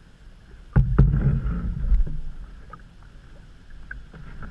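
A canoe being paddled: a sharp knock about a second in, then about a second of low rushing water noise from the paddle stroke against the canoe.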